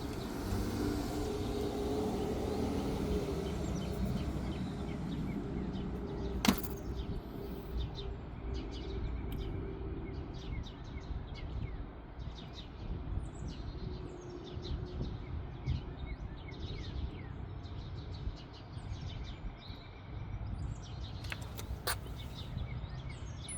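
Faint steady electrical buzz from a CYC X1 Pro Gen 3 mid-drive motor running on an X12 controller, the buzz that comes with its error code 30H. There is a sharp click about six seconds in, and birds chirp in the background.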